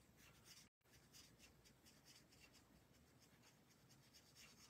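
Faint scratching of a felt-tip marker being stroked back and forth over paper, in short strokes about three or four a second.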